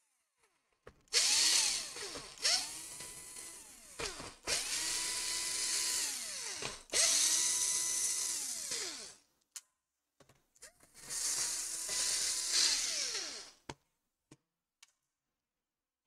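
Cordless electric screwdriver backing out the screws on a laptop's bottom panel. It runs in about five short spells, each spinning up to a steady whine and winding down, with a few light clicks between.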